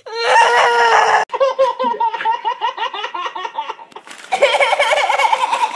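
People laughing hard and high-pitched in rapid repeated bursts, cut off abruptly about a second in and again about four seconds in.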